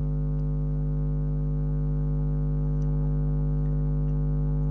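A steady low electrical hum with several overtones, unchanging throughout.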